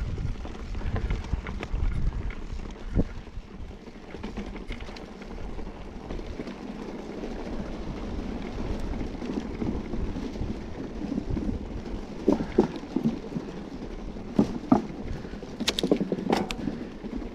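Mountain bike, a Scott Spark RC, rolling down a rough trail: steady tyre noise over dirt and stones, with scattered sharp knocks and rattles of the bike over rocks that come thicker and louder near the end.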